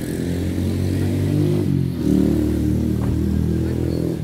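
A motor vehicle engine running close by, its pitch stepping up and down as it is revved, loudest about halfway through.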